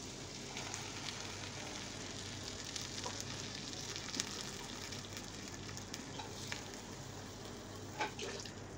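Pumpkin, green beans and onion sizzling in a frying pan with coconut milk just poured in: a steady hiss with scattered small crackles.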